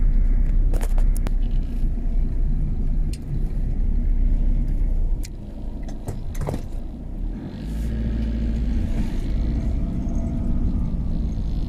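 Car engine and tyre rumble heard from inside the cabin as the car climbs a steep dirt road in first gear. A few sharp knocks come from bumps in the road, and the engine note grows steadier and stronger about two thirds of the way through as it pulls up the slope.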